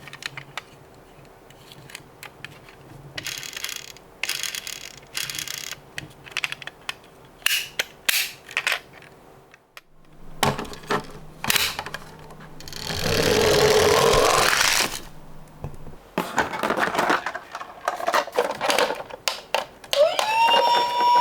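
Clicks and clacks of Tomica die-cast toy cars being handled and set down, with a rushing rattle of about two seconds midway. Near the end a siren tone rises and then holds steady.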